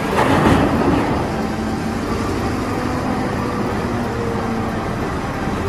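Caterpillar 992G wheel loader at work, its large diesel engine running steadily under load. In the first second a louder rush of earth pours from the raised bucket into a dump truck.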